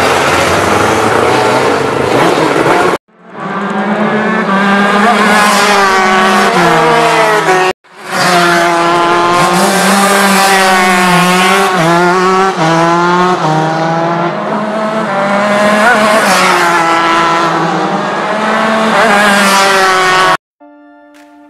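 Racing kart engine running hard on track, its pitch wavering up and down with the throttle and climbing in short rises, heard in separate clips joined by abrupt cuts; before the first cut, about three seconds in, it is a rougher, noisier engine sound. The engine sound cuts off about a second before the end.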